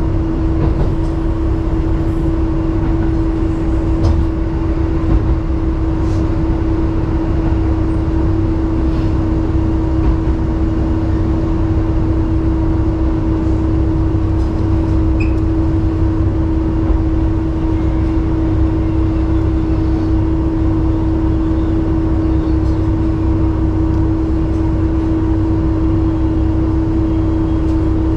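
Inside a KiHa 11 diesel railcar running at a steady speed: a constant engine and drive hum with a low rumble of wheels on rail, holding one pitch throughout.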